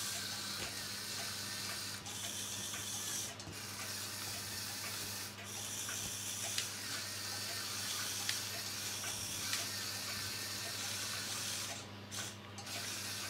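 Lego Power Functions medium motor and Technic gear train whirring steadily as the chassis drives and reverses, with a few brief dips where it slows or stops.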